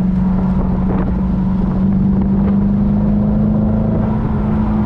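A 2000 Chevrolet Corvette C5's LS1 V8 running through a MagnaFlow exhaust as the car cruises, a steady drone heard from inside the car. Its pitch rises a little about two seconds in and then holds.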